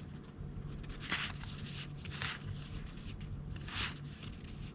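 Playing cards being slid off a hand-held stack and onto another by hand: three short papery swishes a second or more apart, the third the loudest.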